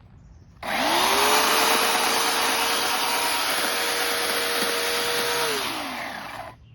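Chainsaw motor spinning up suddenly, running at a steady high pitch for about five seconds, then winding down and stopping.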